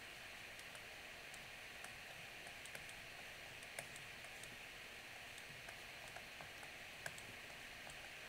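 Light, scattered clicks and taps of a stylus on a tablet or pen display during handwriting, over a faint steady hiss; two taps near four and seven seconds in stand out slightly.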